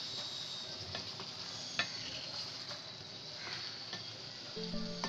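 Wooden spatula stirring a simmering arum-stolon (lothi) curry in an aluminium pot over a steady sizzle, with a few sharp knocks of the spatula against the pot, the loudest about two seconds in. Soft background music comes in near the end.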